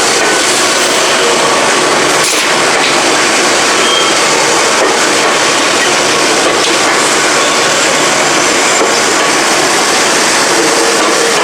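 Electric bell of an Enoden railway level crossing ringing continuously as a fast, even metallic trill, the warning that a train is coming.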